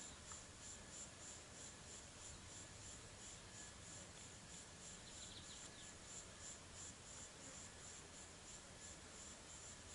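Faint insect chirring: a steady, high-pitched pulsing trill, with a second, lower trill joining briefly about five seconds in.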